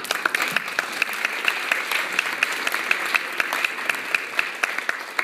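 Audience applauding: many hands clapping, starting abruptly and thinning out near the end.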